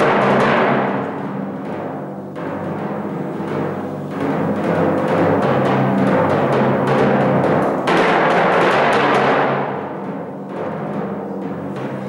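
A pair of copper-kettle timpani played solo with mallets in quick, dense strokes, the low pitches of the two drums ringing on. It starts loud, drops back after about a second, grows again from about four seconds in to its loudest near eight seconds, and is softer near the end.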